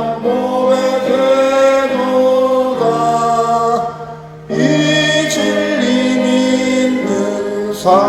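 A church congregation singing a slow Korean hymn in long held notes, with a brief break between phrases about four seconds in.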